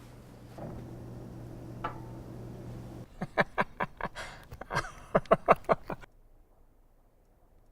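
A steady low hum, then a quick run of about a dozen knocks over three seconds, after which the sound falls to near silence.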